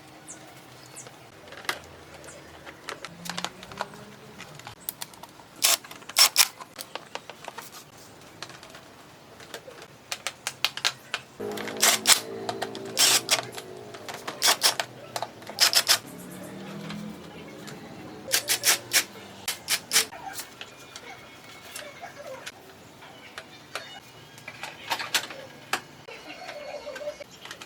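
Irregular sharp clicks and light taps in clusters, busiest in the middle, over a faint steady hum.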